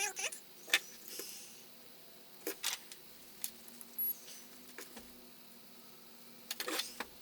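Scattered light clicks and taps of small hard objects being handled, about one every second, with a quick cluster of several near the end. A cat's meow trails off right at the start.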